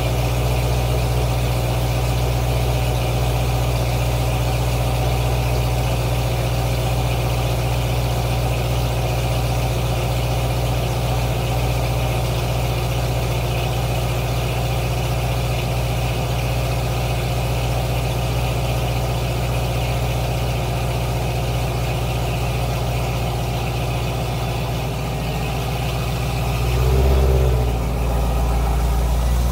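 Chevrolet Corvette C5 Z06's LS6 V8 idling steadily through ARH headers and stock mufflers, a low even idle from the quad tailpipes. Near the end the revs rise briefly and drop back.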